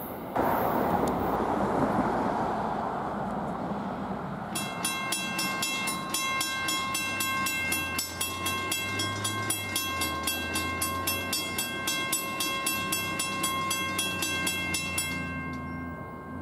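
Railroad grade-crossing bell ringing steadily at about three strikes a second, starting about four seconds in and stopping shortly before the end. Under it is a low rumble of rail traffic, after a loud rushing noise in the first few seconds.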